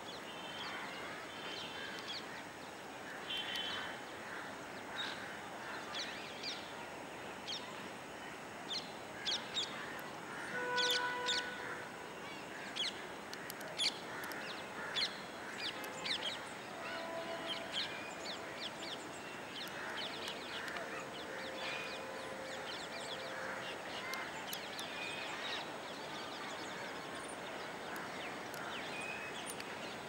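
Many birds chirping and calling: short, sharp notes scattered throughout and thickest in the middle, with a few lower pitched calls, over a steady background hiss.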